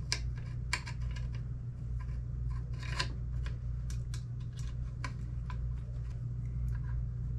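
Irregular light clicks and ticks of small rifle parts being handled and fitted, with a steady low hum underneath.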